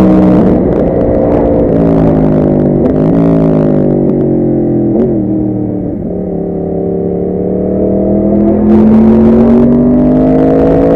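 Yamaha R1 sport-bike engine heard onboard with wind noise. The revs fall for about six seconds, with two brief blips along the way, then climb steadily as the bike accelerates.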